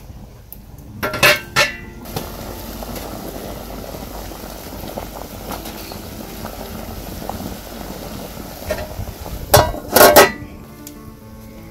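Cauliflower boiling in water in an aluminium pot, a steady bubbling. The metal lid clanks twice as it is lifted, about a second in, and again loudly as it is set back on the pot near the end.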